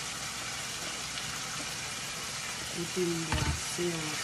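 Ground meat and peppers sizzling in a hot pan, a steady frying hiss, with one knock a little past three seconds in as a spatula works the pan.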